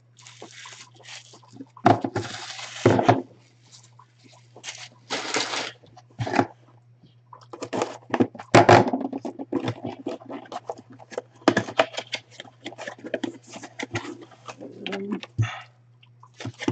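A cardboard autographed-baseball box being opened and handled by hand: irregular rustling, scraping and knocking of cardboard, over a steady low hum.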